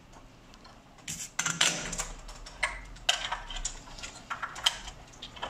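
Irregular clicks, taps and rustling from hands handling and routing a wire inside a copper amplifier chassis, starting about a second in.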